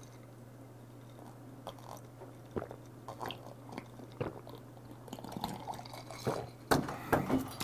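Close-miked eating and drinking sounds: soft chewing of raw tuna and swallowing gulps of an iced whisky highball, as faint wet mouth clicks. They get busier and louder in the last couple of seconds, over a steady low hum.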